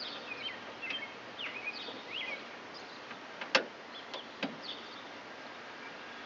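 Birds chirping in the background over a steady outdoor hiss, with a few sharp clicks and knocks, the loudest about three and a half seconds in, from a nut being worked onto a bolt by feel inside a van door.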